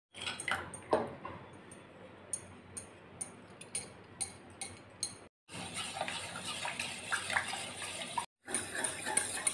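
Metal spoon scraping and tapping a ceramic bowl as thick cocoa paste is scraped into milk, then the spoon stirring the chocolate milk in a metal pan. There are separate clicks and scrapes, with two short breaks of silence, and denser liquid stirring near the end.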